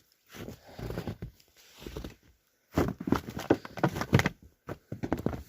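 Footsteps crunching and scraping in an irregular run, loudest about halfway through, with a brief quiet spell just before.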